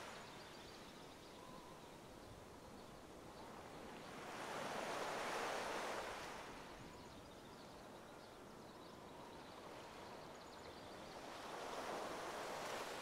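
Faint ocean surf: waves washing in, swelling about four seconds in and again near the end.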